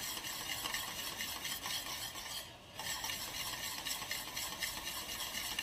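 Metal wire whisk stirring a thick, thickening ube halaya mixture in a stainless steel pan, with quick repeated strokes against the pan and a brief pause a little past two seconds in.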